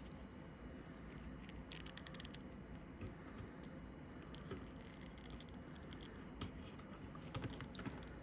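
Faint clicks and rustling of a plastic action figure being handled as its waist joint is pressed back together, with a cluster of sharp ticks about two seconds in and another near the end.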